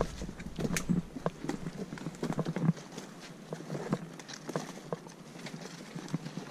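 Footsteps of hikers in rubber boots on a rough forest trail: irregular thuds and small clicks, louder for the first few seconds and then softer.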